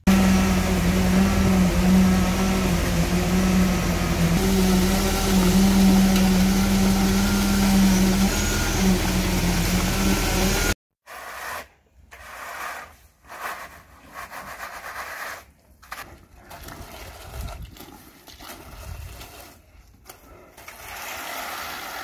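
A motor runs steadily with a strong, even hum for about ten seconds, then cuts off abruptly. After it, quieter irregular scraping and working sounds follow, consistent with workers spreading and levelling wet concrete by hand.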